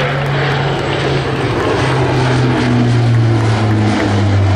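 RAF C-130J Hercules flying past, its four turboprop engines and propellers droning loudly; the pitch drops about four seconds in as it passes.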